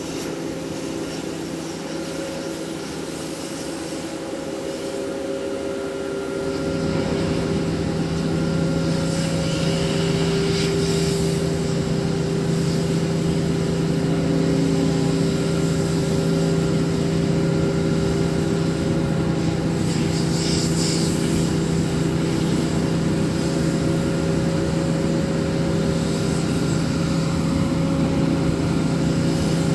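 The crane's 1430 kW Cat diesel engine running steadily under load while the hoist winch lifts a 100-ton test load. The engine note steps up and gets louder about six seconds in, then holds steady.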